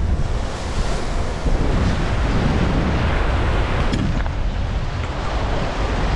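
Wind buffeting the microphone over surf washing against jetty rocks, a steady loud rush strongest in the low end.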